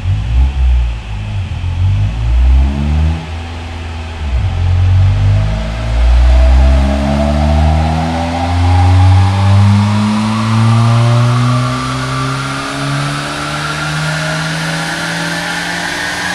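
Toyota Corolla E90's four-cylinder engine revving hard on a rolling-road dyno run. The revs rise and fall in short pulls for the first few seconds, then climb in one long, steady rise under load.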